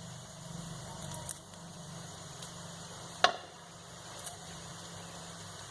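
Stirring in a frying pan as curry leaves go into the fried fish roe: a few light taps and one sharp knock of the spatula against the pan about three seconds in, over a low steady hum.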